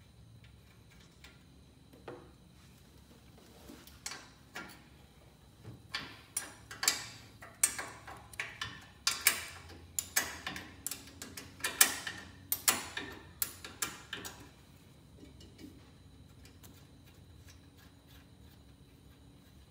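Ratchet wrench clicking in short runs as the bolts holding the stock exhaust pipe on a small go-kart engine are worked loose. The clicks are scattered at first, come thick and sharp through the middle, and stop well before the end.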